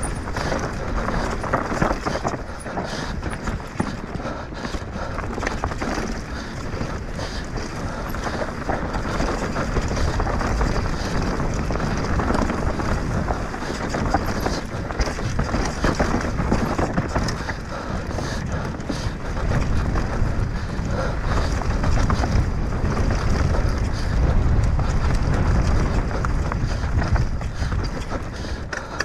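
A mountain bike descending fast over rough ground, heard from an action camera on the rider: wind buffeting the microphone, tyres rolling over dirt and rock, and constant rapid knocks and rattles from the bike.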